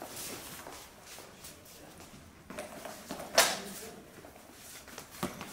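Longsword sparring: fencers' feet stepping and shuffling on a wooden hall floor, with one sharp clack of the swords meeting about three and a half seconds in that rings briefly in the hall, and a lighter knock near the end.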